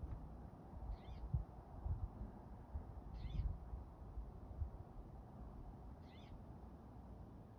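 An animal's short high call, repeated every two to three seconds, over low rumbling bumps on the microphone.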